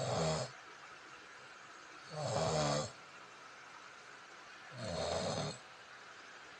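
A sleeping person snoring: three snores about two and a half seconds apart, each lasting under a second.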